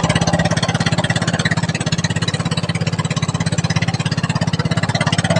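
Outrigger motorboat's engine running steadily under way, with a rapid, even chugging pulse, over the hiss of wind and water.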